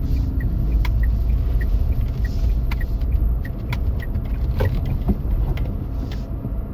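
Car driving, heard from inside the cabin: a steady low rumble of engine and road, with a light regular ticking about three times a second and a few sharp knocks from the road surface.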